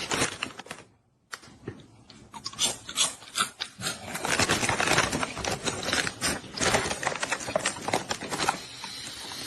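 Rapid, irregular clattering and tapping. It stops briefly about a second in, then comes back and grows denser and louder from about four seconds in.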